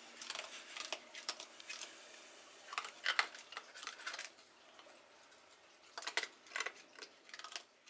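Raccoon kit eating dry kibble from a stainless steel bowl: sharp crunching and clicking as it chews and paws at the pellets, with light clinks of the metal bowl, coming in several bursts.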